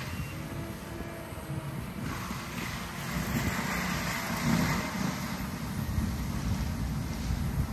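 Diesel engine of a compact track loader fitted with a forestry mulcher head, running steadily as the machine moves across a land-clearing site.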